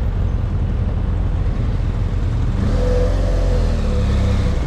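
BMW F800GS parallel-twin engine running at low speed with a steady low rumble as the motorcycle is ridden slowly.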